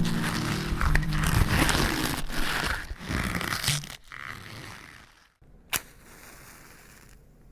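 Waterfall rushing, a loud, steady rush that fades away after about four seconds, with a single sharp click near six seconds.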